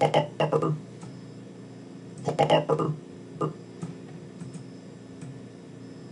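Short, chopped fragments of a cartoon character's recorded voice line, played back as the animation timeline is scrubbed. Three brief bursts of voice come in the first three and a half seconds, then a few faint clicks, over a steady low hum.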